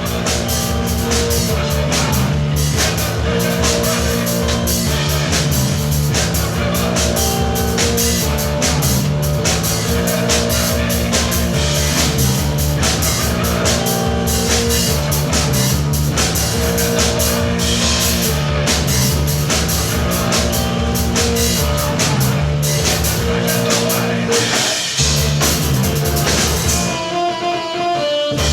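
Keyboard-and-drums duo playing fast, loud rock, with rapid double bass kick drum and drums under held keyboard notes. The low end drops out briefly near the end.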